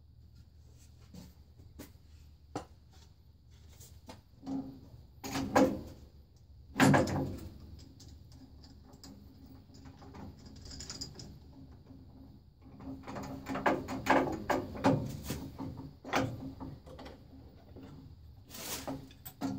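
Irregular knocks, clunks and scraping, as of objects being handled and set down. They are loudest about five to seven seconds in and again in a cluster a little past the middle.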